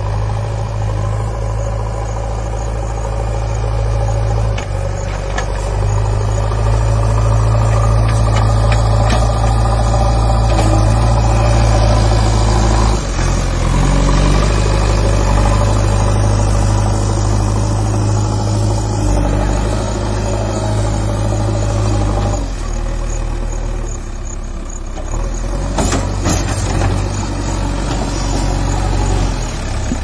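JCB backhoe loader's diesel engine running under work as the machine drives through loose soil and pushes it with its front loader bucket. The engine note eases off briefly a little past twenty seconds, and then picks up again.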